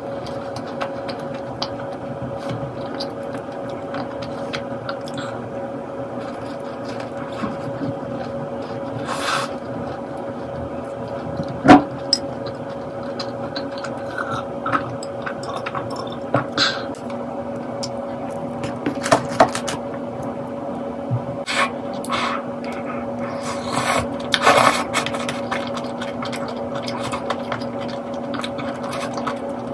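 Close-up eating and drinking sounds: chewing a soft cookie, a sharp clink about twelve seconds in, sipping from a glass of iced tea, and spoon and bowl sounds near the end. A steady low hum runs underneath.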